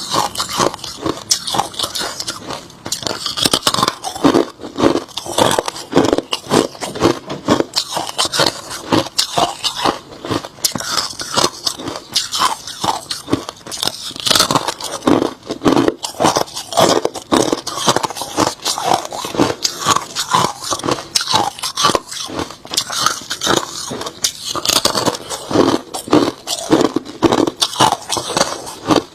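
A person chewing hard crushed ice, a continuous run of sharp, rapid crunches with no pauses.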